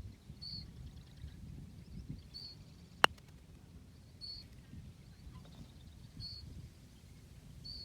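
A single sharp crack of a golf club striking the ball about three seconds in, over wind rumble on the microphone. A bird repeats a short high chirp about every two seconds.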